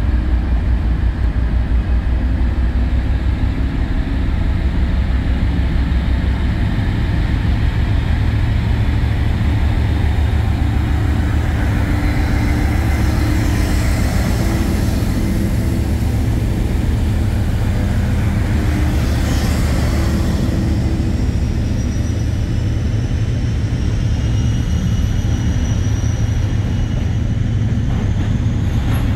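Two Colas Rail Class 56 diesel locomotives, with Ruston-Paxman V16 engines, hauling a loaded log train past at close range: a steady heavy engine rumble as the locomotives go by, then the running of the log wagons rolling past. A thin high squeal rises in over the last few seconds.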